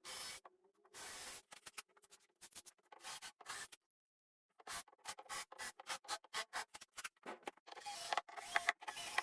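Quick, irregular scraping and rubbing strokes on wood, stopping for about a second near the middle and then starting again.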